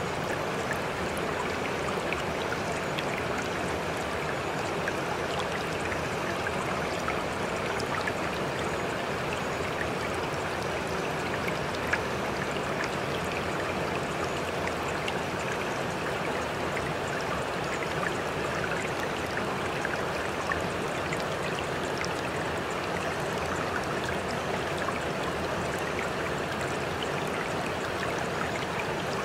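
Steady sound of running water, like a flowing stream, with small scattered ticks of droplets.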